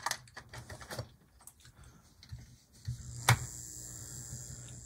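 Small clicks and taps of a model locomotive chassis being handled. Then, from about three seconds in, with a sharp click, a steady electric hum from the HO-scale Life-Like Proto ALCO FM2's small motor under power, sounding a little bit seized.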